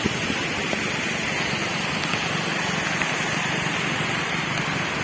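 Steady rushing road noise from a moving vehicle on a wet road: a low engine hum under an even hiss of tyres and wind.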